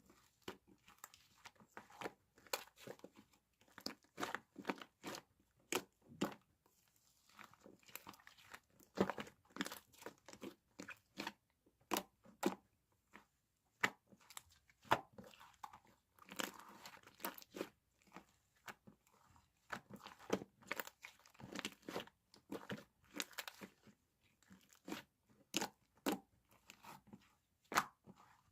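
Slime being squeezed, stretched and pressed by hand, giving irregular runs of crisp crackling clicks with short pauses between them.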